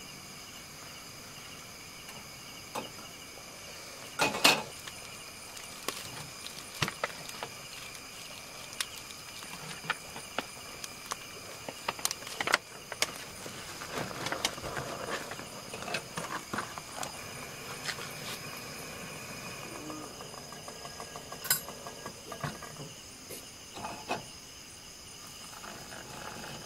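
Crickets and other night insects chirring steadily, with scattered clinks, taps and knocks of metal cups, a spoon and camping gear being handled on a camp table. The loudest knock comes about four seconds in, and the handling is busiest in the middle.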